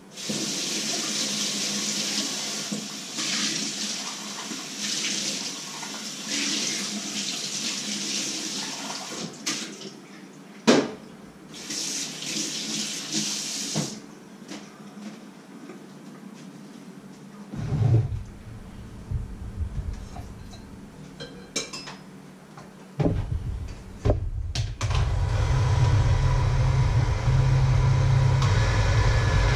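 Kitchen tap running into a sink while things are rinsed, with a sharp knock partway through. After some clattering, an electric hand mixer starts about three-quarters of the way in and runs steadily, beating batter in a plastic jug.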